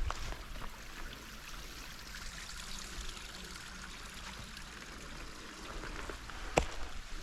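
A stream flowing steadily, with a few sharp knocks, the loudest one near the end.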